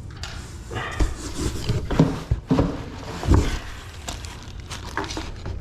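Irregular knocks and clunks with rustling, from bike parts and their packaging being handled.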